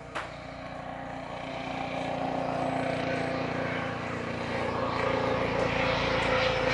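Airbus H135 helicopter flying past low: the even beat of the main rotor with a steady whine over it, getting louder as it comes closer.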